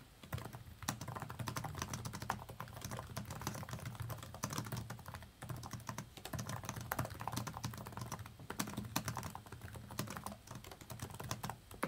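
Typing on a Microsoft Surface Laptop Studio's built-in keyboard: a continuous run of quick key clicks, with a brief pause about five seconds in.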